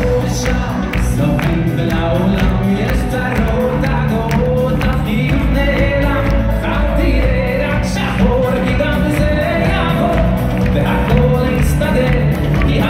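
An amplified live band plays with a man singing the lead.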